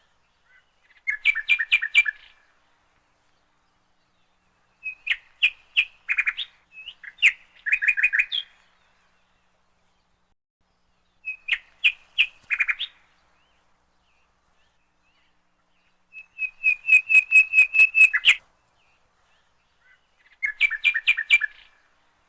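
A bird chirping in quick runs of short, high notes, several notes a second. The runs last one to two seconds each and come five or six times, separated by silent gaps.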